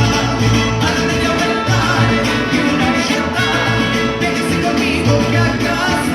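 Mariachi band playing a Latin American song.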